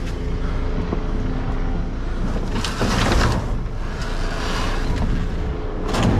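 A motor vehicle engine running at a steady idle. Short bursts of noise come over it about three seconds in and again near the end.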